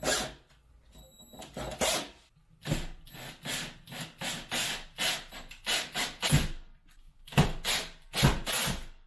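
A tool working into wood, making a series of rough rasping strokes about two to three a second. They come in two runs with a short pause between.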